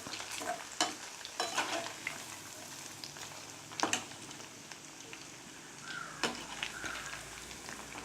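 Cubes of leftover idli frying in hot oil in a kadai on a low flame: a steady sizzle, with a few sharp scrapes and clicks of a spatula against the pan as they are stirred.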